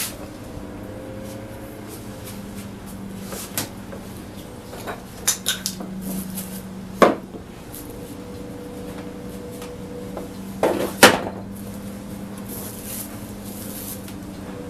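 Hand-handled workshop parts and tools giving scattered clicks and knocks, with two louder knocks about seven and eleven seconds in, over a steady low hum.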